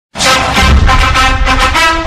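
Opening theme music that starts abruptly and plays loudly with a strong beat.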